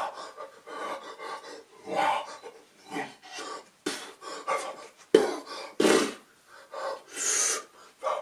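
A man's breathing and non-speech mouth sounds (puffs, hisses, short vocal bursts) while signing, mixed with his hands brushing and slapping against his body and clothes, including a few sharp slaps in the second half.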